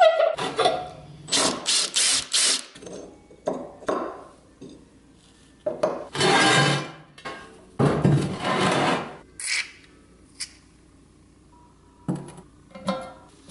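Rusty metal parts of a dismantled bench grinder being scraped, slid and handled on a wooden workbench: a run of short rough scrapes, two longer scrapes of about a second each in the middle, and a few sharp knocks and clicks near the end.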